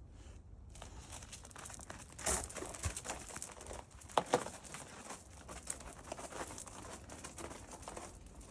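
Crinkling and rustling with scattered sharp clicks, loudest a little past two seconds and again about four seconds in.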